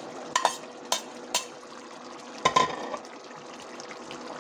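A metal spoon scrapes green chillies off a plate and knocks against the rim of an aluminium pot, giving several sharp clacks in the first three seconds, the loudest about two and a half seconds in. It then stirs through a simmering keema curry, which keeps up a faint steady hiss.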